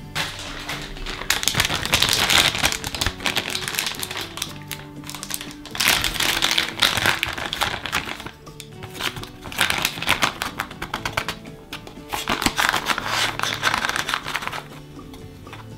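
Plastic bag of flour crinkling as it is handled and opened, in several bursts of a few seconds each, over soft background music with low held notes.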